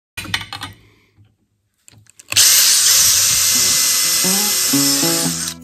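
Cordless drill boring through the flattened end of a metal hood-stick tube. It runs loud and steady with a high whine from a little after two seconds in and stops near the end. A few short knocks come just after the start.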